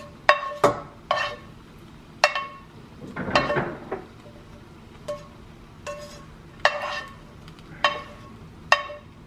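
Frying pan and stainless steel pot clinking as a plastic slotted spoon scrapes and taps seafood out of the pan into the pot: about nine sharp, ringing clinks at irregular intervals, with a short scrape a little after three seconds in.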